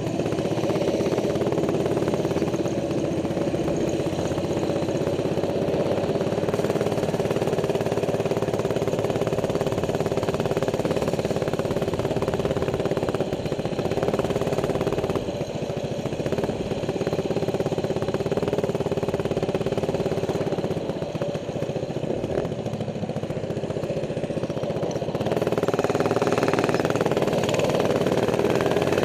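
A minibike's small single-cylinder four-stroke engine running steadily under way at cruising speed. It eases off twice in the middle and picks up again near the end.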